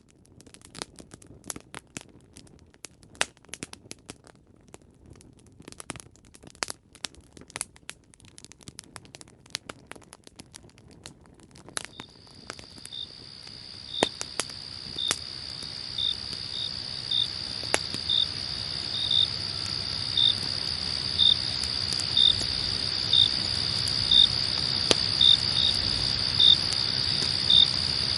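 Campfire crackling with sharp pops. About twelve seconds in, crickets fade in and grow louder: a steady high trill with slower separate chirps, roughly one a second, as the crackling thins out.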